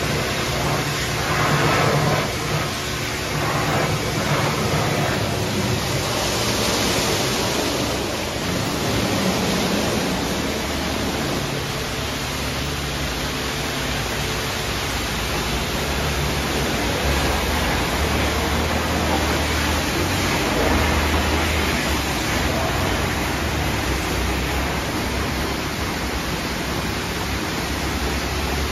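Istobal M'Start rollover car wash running its Infinite mousse foam and brush wash: a steady rush of water and foam pouring over the spinning brushes as they scrub the car, over a steady low hum of the gantry's motors.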